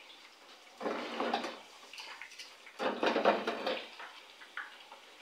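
Chips deep-frying in an electric deep fryer: the oil sizzles and crackles steadily, with two louder bursts of crackling about a second in and about three seconds in.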